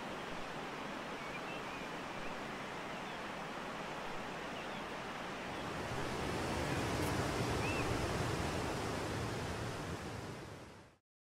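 A steady rushing noise that grows louder a little past halfway, with a few faint chirps, then cuts off abruptly near the end.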